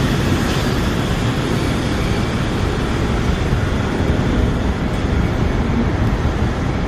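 Steady rumble and hiss of vehicles in motion, with no distinct events.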